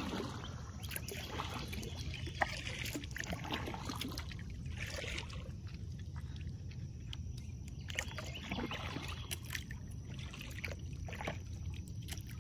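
Water trickling and splashing around a kayak as it is paddled, with scattered light knocks and one sharper knock about two seconds in, over a steady low rumble.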